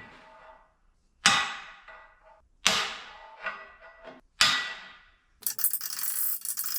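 Three hammer blows driving a tight steel lock collar onto an excavator thumb's pivot shaft, each a sharp metallic clang that rings briefly, about a second and a half apart. Near the end a steady harsh noise starts.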